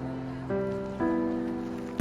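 Background music: soft held chords that change about every half second.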